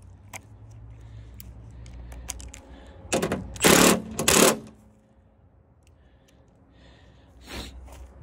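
Cordless drill fitted with a socket running in three short bursts about three seconds in, and once more briefly near the end, tightening a rear wing's mounting nut under a car's trunk lid. Small clicks of the socket and hardware sound between the bursts.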